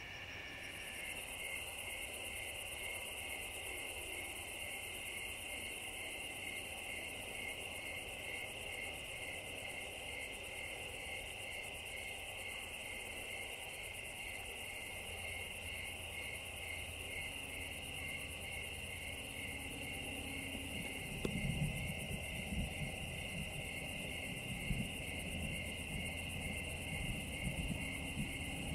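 A steady chorus of crickets and other night insects, with an evenly pulsing chirp. About two-thirds of the way in, an uneven low rumble joins and grows louder.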